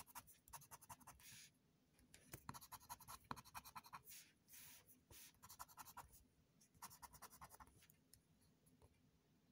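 Faint scratching of a scraper rubbing the coating off a scratch-off lottery ticket, in rapid back-and-forth strokes. The strokes come in several short bursts with pauses and stop about eight seconds in.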